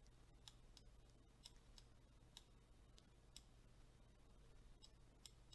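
Near silence with faint, irregularly spaced computer mouse clicks, about a dozen of them.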